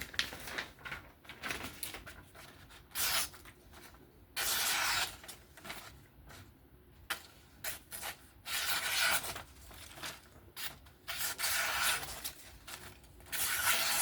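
Sharp edge of a QSP Penguin's S35VN steel blade slicing through paper, a series of about six hissing, rasping cuts, each lasting half a second to a second.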